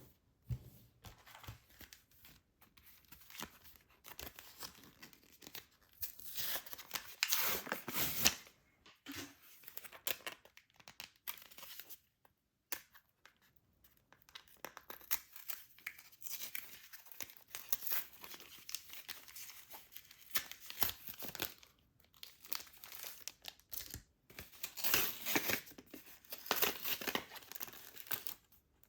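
Trading card blister pack packaging being torn open and crinkled by hand, in irregular rustling bursts, loudest for a couple of seconds about six seconds in and again near the end.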